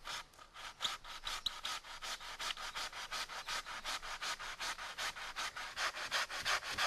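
Hand saw cutting through a live willow stem, about wrist-thick, near its base, with quick, even back-and-forth strokes of about five a second.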